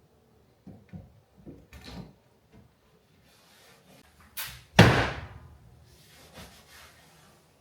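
A few light knocks, then a sharp knock and a loud door-slam-like bang just under five seconds in, fading out over about a second.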